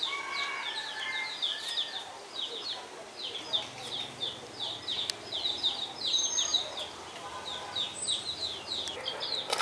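Bird chirping: a steady run of short, high, falling chirps, several a second, in quick little groups.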